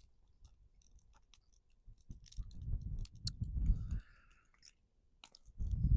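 A person chewing grilled pork chop close to the microphone, with small wet clicks and smacks, and a louder low rumble coming and going from about two seconds in.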